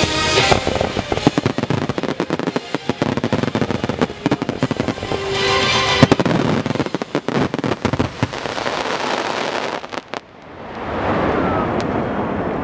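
Fireworks display: rapid bangs and crackling shell bursts over music, stopping about ten seconds in, after which a steady rushing noise remains.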